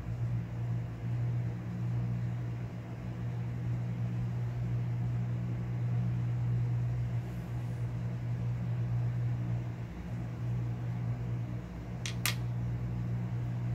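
A steady low hum, like a fan or small motor running, with two sharp clicks in quick succession near the end.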